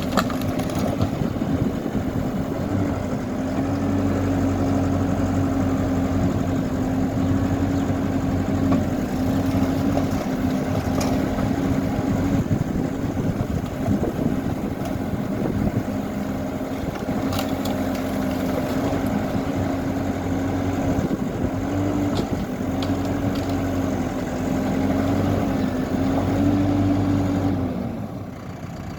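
Hidromek backhoe loader's diesel engine running steadily under work, its pitch dipping and rising slightly as the load changes. A few short knocks come through it, and the engine drops off a little near the end.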